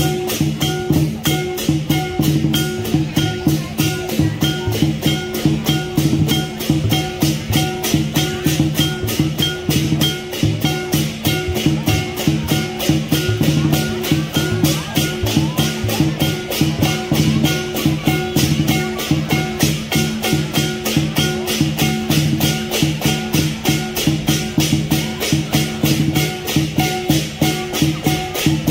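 Lion dance percussion of drum, clashing cymbals and gong, playing a fast, steady beat.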